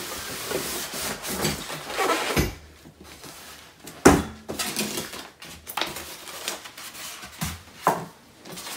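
A cardboard box being handled and unpacked on a wooden desk: rustling and scraping, with a few knocks against the wood, the loudest about four seconds in.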